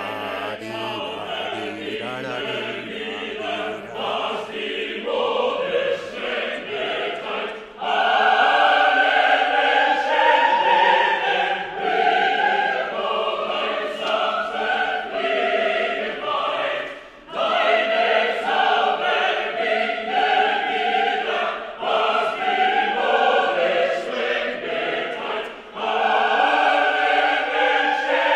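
A choir singing sustained phrases. It swells fuller and louder about eight seconds in, with two short breaks between phrases later on.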